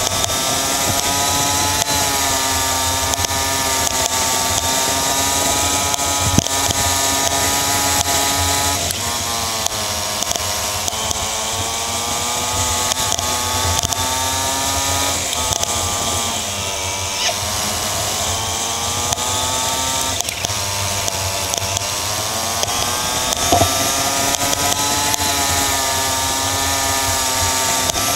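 Race kart engine heard onboard at speed, its pitch dropping sharply into corners three times (about 9, 16 and 20 seconds in) and climbing again as the kart accelerates out. A steady hiss of wind and road noise runs over it.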